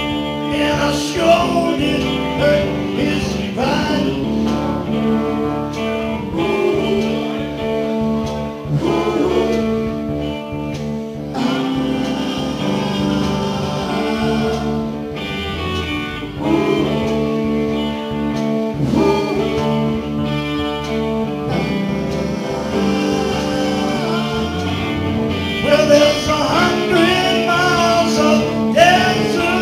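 Live blues band music: amplified harmonica played into a hand-cupped microphone, with bending, wailing notes over electric guitar and bass.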